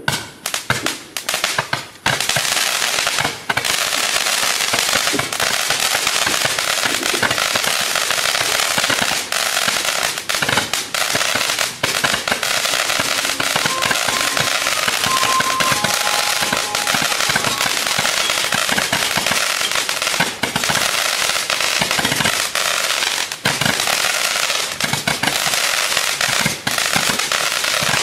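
Sunwing Disco Stick firework going off. It starts suddenly with a few separate cracks, then settles into a continuous, dense rapid-fire crackling and popping as it keeps launching shots.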